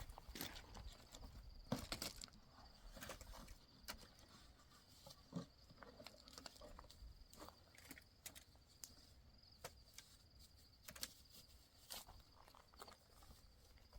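Near silence with faint, scattered clicks and rustles over a faint steady high whine.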